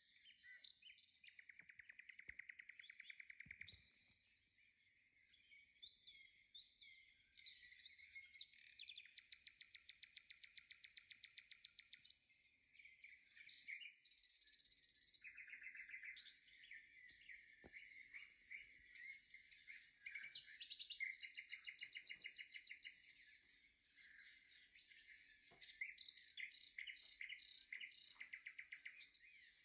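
Faint songbird singing almost without pause, in chirps and fast rattling trills, with a few short breaks.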